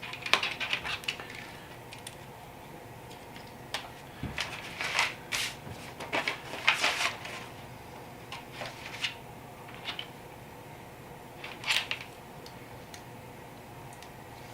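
LEGO plastic pieces clicking and rattling as turntable parts are handled and pressed together, in scattered bursts of small sharp clicks.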